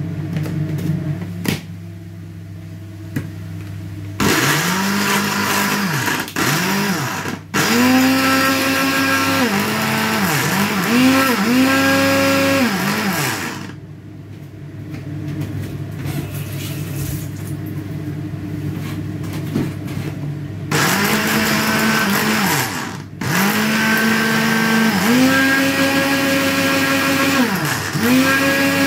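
Electric blender chopping raw cauliflower into rice-sized bits, run in pulses: the motor spins up, dips and spins up again several times. It makes two runs, one starting about four seconds in and stopping about halfway, the other starting again about three quarters of the way through.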